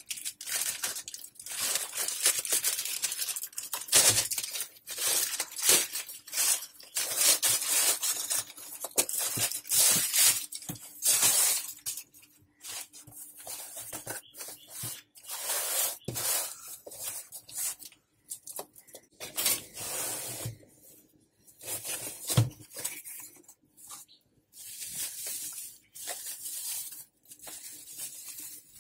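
Thin plastic mailer bag being torn open and crinkled by hand, followed by a cardboard box being handled and opened and bubble wrap rustling. The sound comes as irregular rustles, rips and light knocks, with short pauses between them in the second half.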